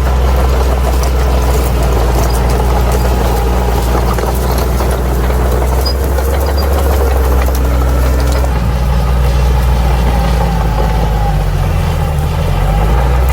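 Crawler bulldozer's diesel engine running steadily, its pitch sagging briefly and recovering near the end.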